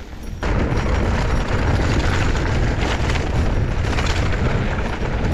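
Heavy wind buffeting on the microphone, mixed with tyre and frame rattle from a mountain bike rolling fast down a dirt singletrack. It comes on suddenly about half a second in and stays loud, with short knocks from bumps in the trail.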